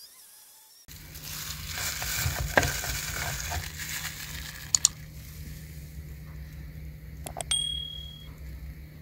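Electric citrus juicer running with a steady hum as orange halves are pressed on its reamer, with a wet pressing noise and a few clicks. Two sharp clicks come mid-way, and a short bell-like ding sounds near the end.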